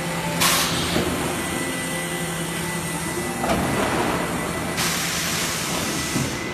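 Industrial plastics-processing machine running with a steady hum, broken by a short sharp hiss of air about half a second in and a longer rushing hiss from about three and a half seconds to near the end.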